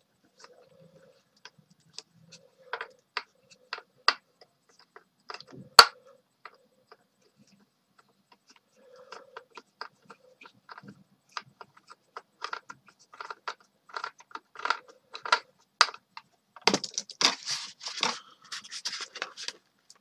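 Screwdriver working at the small screw that holds a 1:32 plastic-and-metal Tumbler Batmobile model to its box base: scattered clicks and scrapes, quickening into a busy run of scraping and rattling in the last few seconds. The screw is not coming out because it is being turned the wrong way.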